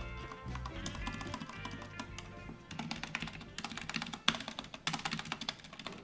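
Typing on a modded Redragon K530 mechanical keyboard with Outemu brown switches and tape-modded stabilisers: a quick run of keystroke clicks, thicker in the second half. Background music plays underneath.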